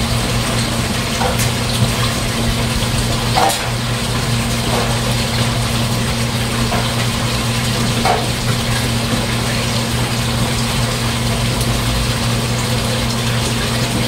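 A water pump running with a steady electric hum, with water splashing and trickling.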